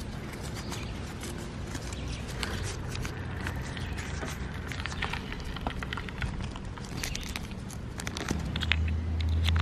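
Handling of a small geocache container close up: paper and a plastic baggie rustling, with scattered small clicks and ticks over a low rumble that grows louder near the end.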